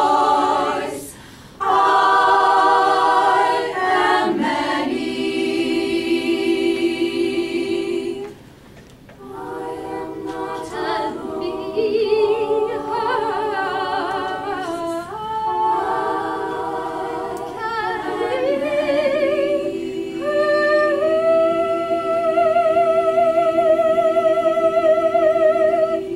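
Women's choir singing a cappella in long held chords, with short breaks about a second in and about eight seconds in. In the last several seconds one voice holds a high note with vibrato over a sustained lower chord, cutting off at the end.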